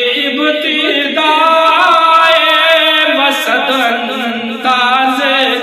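A man's voice chanting an Urdu devotional kalam (naat) in a drawn-out melisma, holding long notes that waver in pitch.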